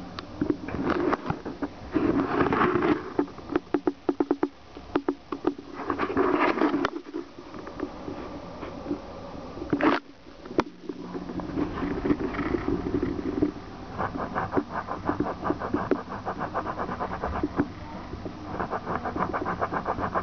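Fingernails scratching rapidly on a tabletop in several bursts, a fast, even scratching rhythm that is steadiest near the end, made to draw a cat out. A single sharp click about halfway through.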